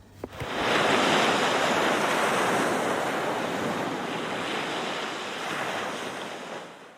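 Sea waves washing onto a sandy beach: a steady rush of surf that swells up shortly after the start and slowly fades away near the end.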